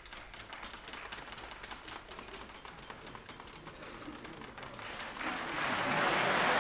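Large audience applauding: scattered single claps at first, thickening steadily and swelling into full, dense applause about five seconds in.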